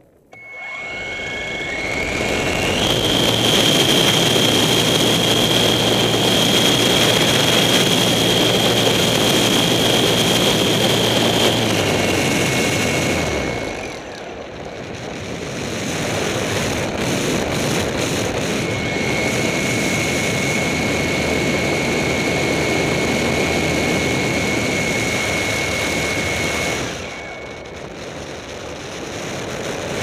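Engine and propeller of a ski-equipped light aircraft. It comes in suddenly near the start and runs up to high power with a steady high whine. Power eases off briefly about 13 seconds in and again near the end, then rises once more as the aircraft lifts off.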